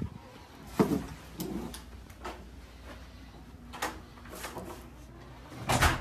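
Hotel room door opened by its lever handle: the latch clicks and the door knocks about a second in, followed by a few lighter clicks and knocks and a louder thump near the end.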